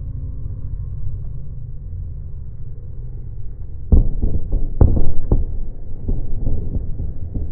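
Fireworks bursting overhead: a steady low rumble, then about four seconds in a quick run of loud booms, three of them sharpest, with crackling between and after.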